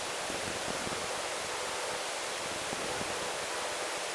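Steady, even hiss of a helicopter's headset intercom feed between transmissions, with no rotor beat or engine tone coming through.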